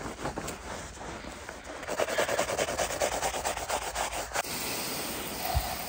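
A wet, soapy rubber car floor mat being scrubbed with a sponge and a stiff bristle brush, in quick repeated back-and-forth strokes.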